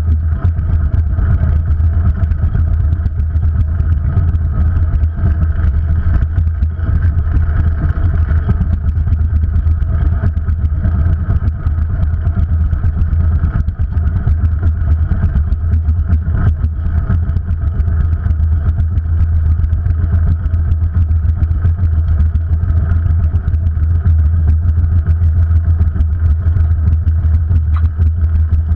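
Steady wind rumble on a bicycle-mounted GoPro's microphone while riding, with road and traffic noise under it.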